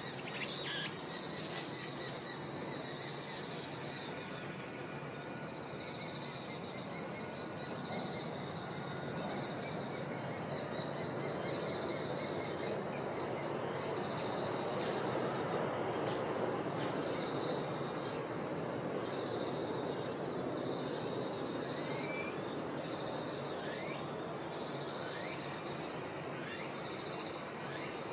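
Outdoor ambience of insects chirping in a steady pulsing trill, with a few short bird chirps later on over a constant background wash.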